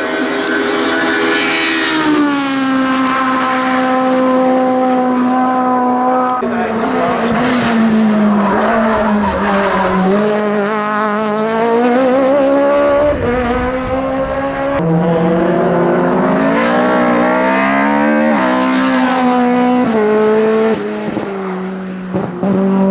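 Hillclimb race car engines running hard, the engine note repeatedly rising under acceleration and dropping on lifts and gear changes. The sound changes abruptly about six seconds in.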